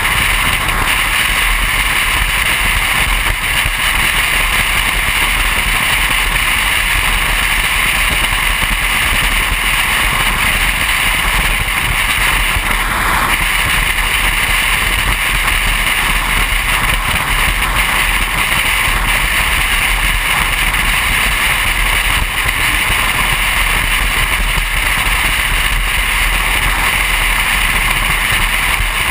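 Steady rush of wind and tyre noise from a car cruising at highway speed, even and unbroken throughout.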